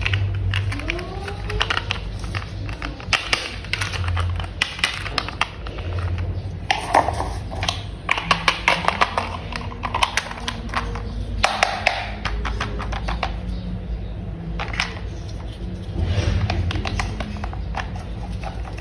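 Plastic toy parts clicking and tapping in irregular clusters as they are handled and snapped together.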